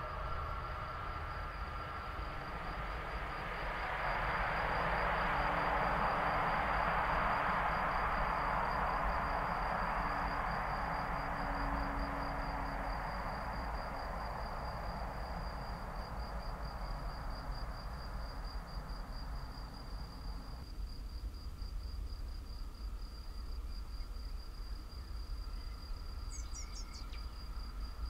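A cricket trills steadily in fast, even pulses at a high pitch. A broad rushing noise swells a few seconds in, fades, and cuts off suddenly about two-thirds of the way through. A few short, high, falling bird chirps sound near the end.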